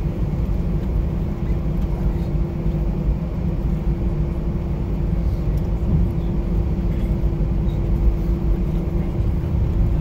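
Jet airliner cabin noise while taxiing after landing: a steady low rumble with a constant mid-pitched hum.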